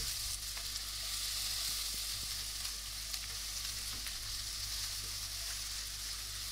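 Sliced onion and chopped garlic sizzling steadily in hot oil in a nonstick wok, with a few soft scrapes and taps of a silicone spatula stirring them as they sauté until fragrant.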